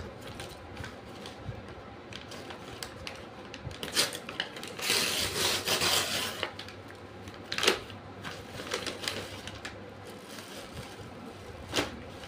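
A paper courier envelope being cut open with scissors and torn apart, the paper crinkling and rustling, with a few sharp clicks. The loudest part, about five seconds in, is a second or two of continuous tearing and rustling.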